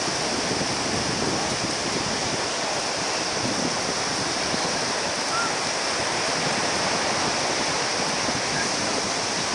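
Steady, even rushing noise of wind and surf, with wind buffeting the microphone.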